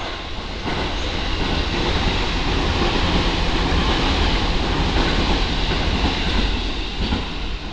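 Series E257 electric limited-express train passing close alongside the platform. It makes a steady, loud rush of wheel and running noise that builds about a second in and eases a little near the end.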